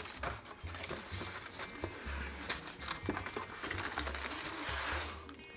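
Cardboard box and packaging being handled and opened: scattered taps, clicks and rustling.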